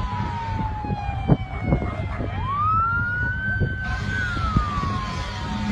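Emergency vehicle siren wailing slowly: falling in pitch, rising again about two seconds in, holding, then falling once more, over a steady low rumble, with a sharp knock about a second in.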